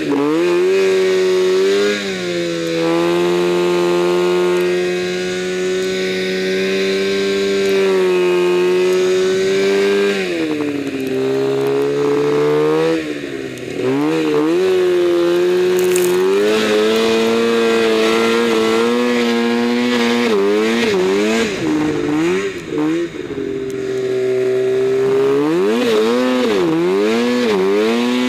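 An Arctic Cat M1000 snowmobile's two-stroke engine runs hard under load in deep powder. It holds steady high revs, broken several times by quick drops and surges of throttle, mostly in the middle and last third.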